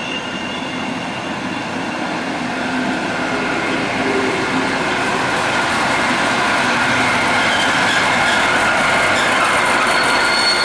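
Regional train of DB coaches rolling along a platform, the wheels rumbling on the rails with a few thin steady squeal tones. It grows steadily louder as its DB class 218 diesel-hydraulic locomotive draws level.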